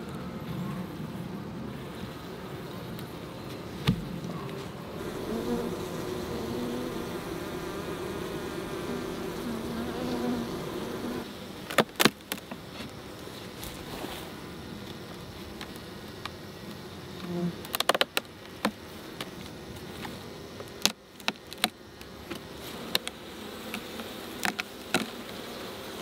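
Honeybees buzzing in a steady hum around an open beehive. Sharp wooden knocks and clicks come from the hive box and frames being handled, a few around the middle and several close together near the end.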